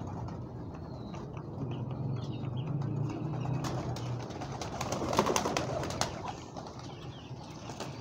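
Pigeons cooing low and steadily for the first few seconds, followed by a cluster of light clicks and rustles about four to six seconds in.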